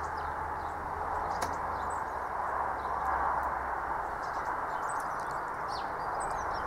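Narrowboat diesel engine running with a steady, even chug, with birds chirping over it.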